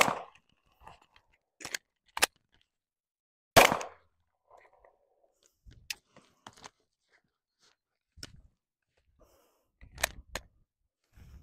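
Handgun shots during a one-reload pistol drill: sharp single reports, the loudest right at the start and about three and a half seconds in. Fainter sharp clicks and knocks are spaced through the rest, with another pair near the end, as the empty magazine is dropped and a fresh one is seated.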